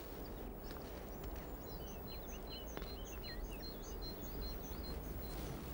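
Small songbirds singing: a quick run of short, high chirps and little whistled glides from about one and a half seconds in until near the end, over a steady low background noise.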